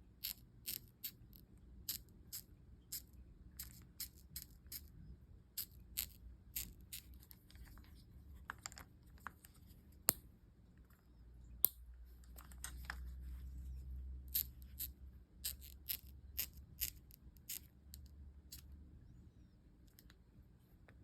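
Kuying Teton folding camp chair squeaking: a long irregular run of short, sharp squeaks and clicks, about one or two a second, with a low rumble under them in the middle stretch.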